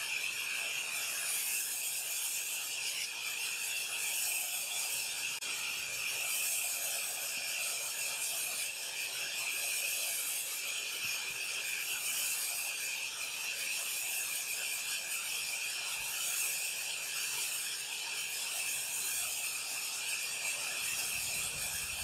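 Sawmill band saw running: a steady, high hiss with no pauses.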